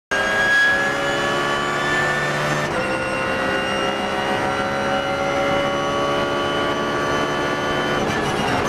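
BMW Z4 GT3 race car's V8 engine at full throttle, heard from inside the car, its pitch climbing steadily with an upshift about three seconds in, after which it climbs again.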